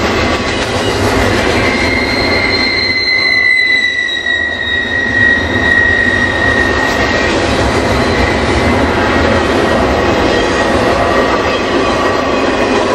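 Cold steel wheels of a double-stack container train rolling on welded rail: a loud, steady rushing rumble. From about a second in until about seven seconds, a high wheel squeal rides over it, drifting slightly lower in pitch.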